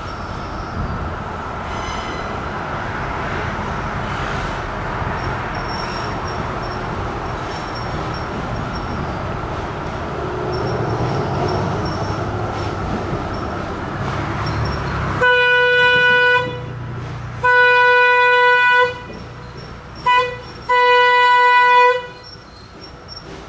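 About fifteen seconds of steady rushing noise, then the steam whistle of Jeddo Coal 85, a 1927 Vulcan 0-4-0T saddle-tank locomotive, blows one steady pitch in the long, long, short, long pattern, the signal for approaching a grade crossing.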